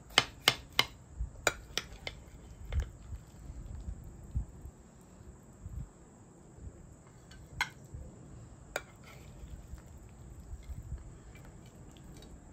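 Metal spoon clinking against a ceramic baking dish and plate as casserole is scooped out and served: a quick run of sharp clinks in the first three seconds, then two more a little past the middle, with soft handling thumps between.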